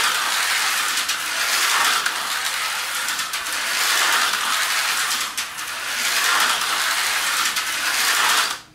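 Tyco 440-X2 HO slot car running laps on a plastic track: its small electric motor and gears whir with a rattly edge, swelling and fading about every two seconds as it goes round. The sound cuts off sharply near the end.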